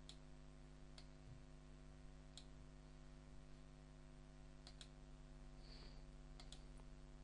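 Faint computer mouse clicks, a few single ones and a couple of quick doubles, over a low steady electrical hum.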